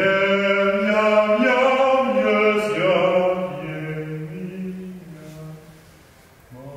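A single male voice singing a slow chant in long held notes, stepping lower about three seconds in and fading out, with a new phrase starting near the end.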